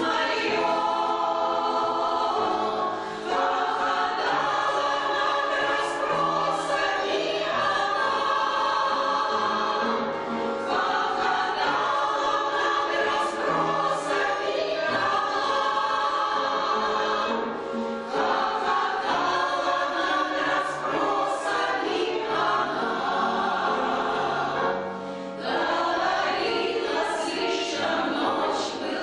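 A choir singing a song in sustained phrases, with short breaks between phrases about three seconds in and again about 25 seconds in.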